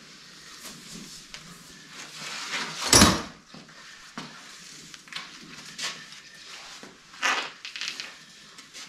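Stable handling noises as a horse is haltered: rustling and light knocks, with one loud brief rush of noise about three seconds in and a shorter one near the end.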